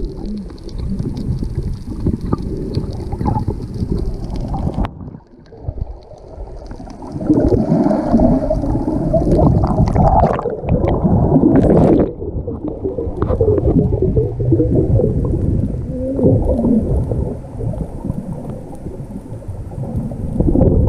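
Muffled underwater sound from a submerged camera while snorkeling: water churning and bubbling, with the higher frequencies dulled. It quietens briefly about five seconds in.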